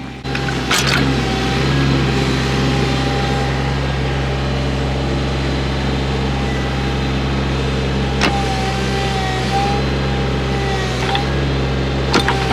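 Mule utility vehicle's engine running steadily while driving, with a few knocks and rattles.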